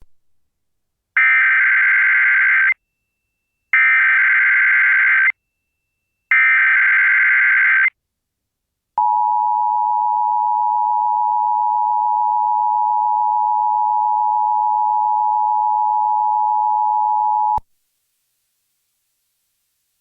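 Emergency Alert System test signal. First come three short, identical bursts of SAME header data, a buzzing digital warble. Then the two-tone EAS attention signal (853 and 960 Hz together) holds steady for about eight and a half seconds and cuts off abruptly.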